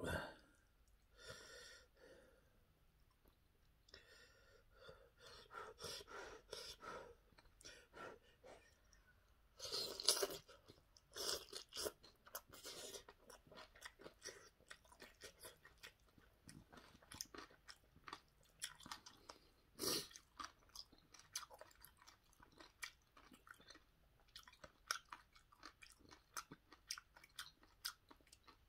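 Close-up eating sounds of instant ramyeon noodles being eaten with wooden chopsticks: soft chewing with many small wet clicks, and a few louder moments about ten and twenty seconds in.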